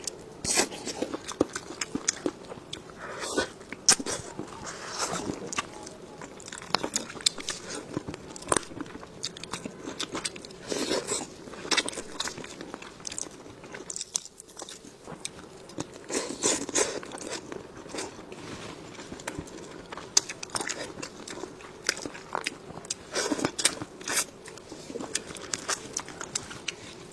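Close-miked eating: biting into and chewing crisp fried food, with irregular clusters of sharp crunches and wet chewing between them.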